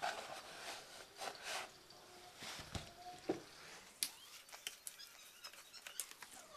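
A cardboard box of breadcrumbs and its paper inner bag being handled and torn open: papery rustling at first, then a run of sharp crackles and clicks in the second half.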